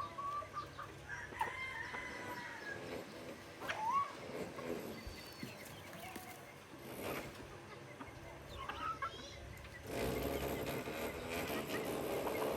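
Chickens calling with short, bending clucks and squawks scattered through the first nine seconds. About ten seconds in, a louder steady rumble starts.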